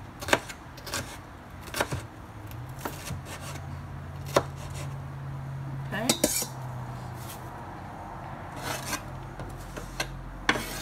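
Chef's knife knocking on a wooden cutting board now and then while dicing bell pepper, about ten separate knocks at an uneven pace; near the end the knife scrapes the diced pepper across the board into a stainless steel bowl.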